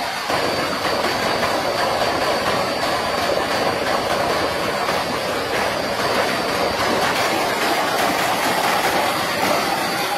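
Water gushing from a tubewell's wide discharge pipe and splashing into a concrete tank: a steady, loud rush.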